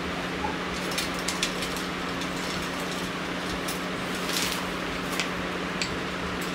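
Lantern softbox being handled: the fabric rustles and its rods click and tap against each other in scattered knocks, over a steady hum.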